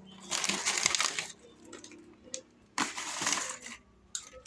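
Crinkling of plastic candy packaging being handled and opened, in two bursts of about a second each.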